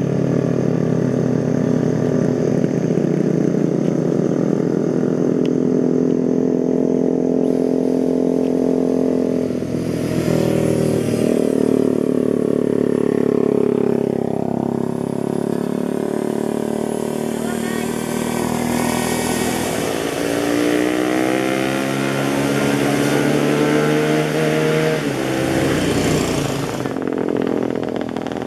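Small camera drone's propellers whining loudly as it spins up and flies, the pitch of the whine shifting and gliding as it manoeuvres, around ten seconds in and again after about twenty seconds.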